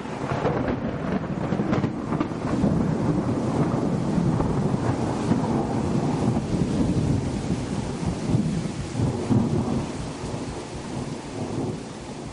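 Rolling thunder rumbling over steady rain, dying away near the end.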